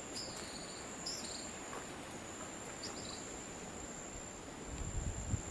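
Insects trilling with one steady, high-pitched tone, with a few short chirps in the first half and a low rumble coming in near the end.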